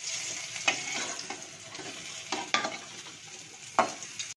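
Metal spatula stirring spices sizzling in oil in an aluminium kadai: a steady frying hiss, with several sharp scrapes as the spatula drags across the pan.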